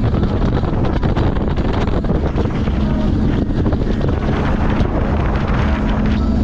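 Small motorboat's engine running steadily under way, a constant low drone, with wind buffeting the microphone and water rushing past the hull.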